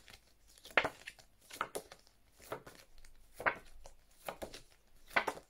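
A stack of card flashcards being flipped quickly, one card after another: a run of short, faint flicks and slides, about a dozen, spaced unevenly.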